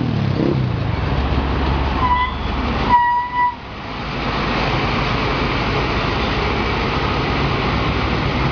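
Mercedes-Benz tri-axle coach rolling slowly, its engine running, with two short squeals from its brakes, about two and three seconds in, the second longer and starting with a sharp click. Steady running noise follows.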